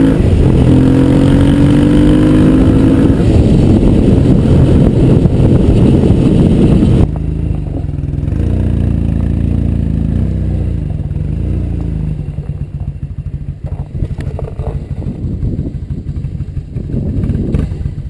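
Motorcycle engine running under way, its pitch climbing slowly as it accelerates. About seven seconds in the sound drops abruptly to a quieter, steady running that carries on with a few light clicks near the end.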